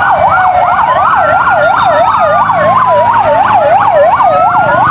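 Fire engine sirens: one in a fast yelp sweeping up and down several times a second, and another in a slow wail that falls and rises again, over the low rumble of the trucks' engines.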